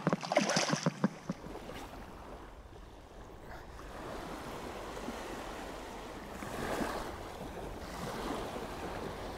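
Small waves washing onto a sandy shore, with wind rumbling on the microphone; the wash swells twice in the second half. A few sharp clicks come in the first second.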